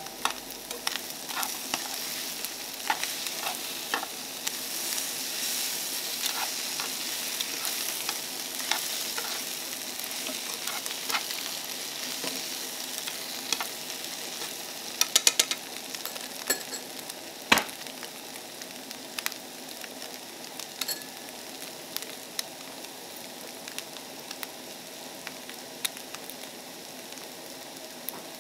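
Tomatoes and egg sizzling in a frying pan while chopsticks stir them, clicking and scraping against the pan, with one sharp knock just past halfway. The stirring then stops and the sizzling carries on.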